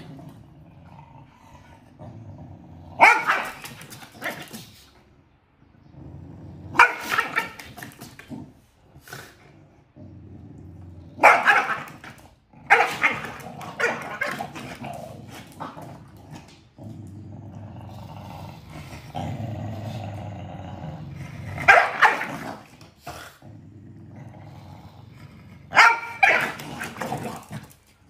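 Pembroke Welsh corgis squabbling: loud, sharp barks in bursts every few seconds, with low growling between them.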